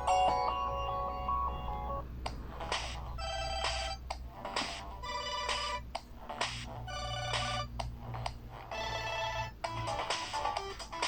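Samsung Galaxy Xcover2 ringtones playing. A melodic tune stops about two seconds in, then a different ringtone of short, repeated note patterns plays.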